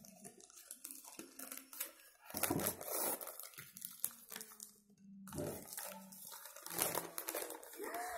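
Folded paper slips being unfolded by hand: irregular crinkling and rustling of paper.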